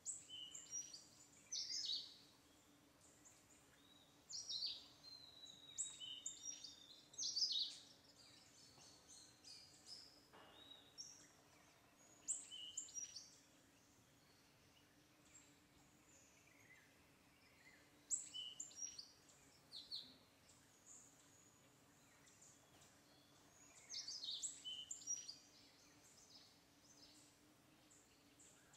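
Birds calling: short, high chirps and falling whistles in scattered bursts every few seconds, over a faint steady low hum.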